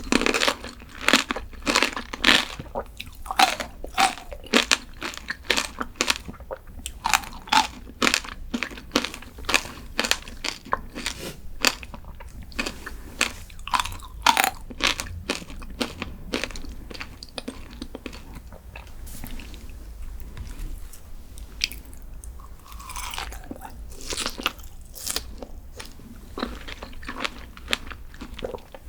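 Close-miked eating: rapid, crisp crunching from bites and chewing of a crunchy dessert, thinning to softer, sparser chewing in the second half.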